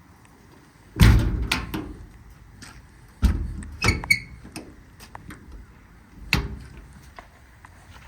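Metal compartment doors on a truck service body being worked. There is a loud bang with a rattle about a second in and a heavy thud a couple of seconds later. Then come latch clicks with a short metallic ring, and one more sharp click near the end.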